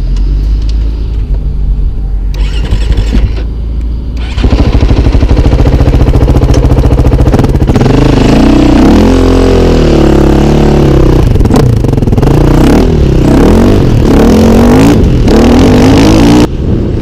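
KTM 530 EXC dirt bike's four-stroke single-cylinder engine idling, then from about four seconds in pulling away hard. It revs up and down repeatedly as it is ridden through the gears, and is cut off suddenly near the end.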